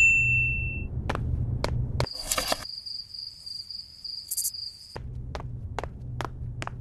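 Low steady hum with footsteps on a hard floor about half a second apart. About two seconds in, the hum cuts off and crickets chirp in a steady high trill; about five seconds in, the hum and footsteps return.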